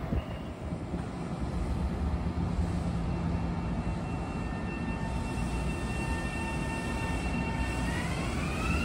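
Electric commuter train's traction motors whining over a steady low rumble. The whine is several tones at once, holding steady and then beginning to rise in pitch near the end as the train starts to pick up speed.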